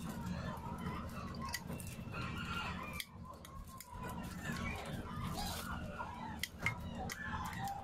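Chickens clucking in the background, with a few sharp plastic clicks near the end as a power plug is fitted into a plug adapter.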